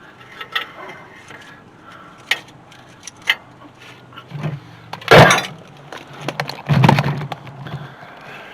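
Scattered clicks and knocks of hand tools and parts being handled during drum brake disassembly on a truck's wheel-cylinder assembly. The loudest knock comes about five seconds in, followed by a heavier clunk a couple of seconds later.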